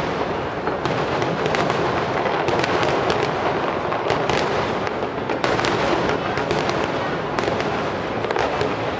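Fireworks display: a dense, unbroken run of bangs and crackles, with many shells bursting in quick succession.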